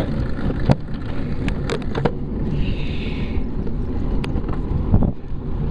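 A bicycle rolling along an asphalt trail at about 15 mph, heard through a camera mounted on its front: steady low road rumble and wind on the microphone, with scattered sharp clicks and knocks from the bike and mount.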